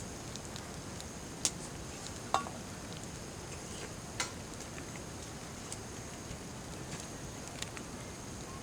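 Campfire cooking: a steady hiss with a faint high whine over it, and a few sharp pops or clicks about one and a half, two and a half and four seconds in.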